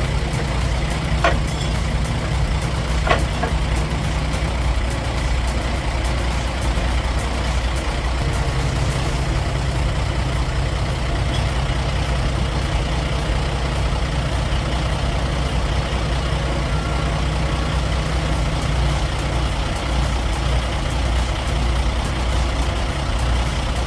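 Heavy truck engine running steadily with a low drone, with two faint clicks in the first few seconds.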